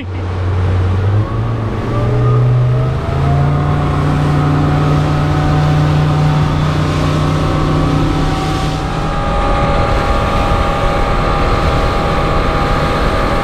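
Suzuki outboard motor running at speed, its pitch climbing over the first three seconds as the boat gets up on plane and then holding steady. Constant rush of wind and water from the hull.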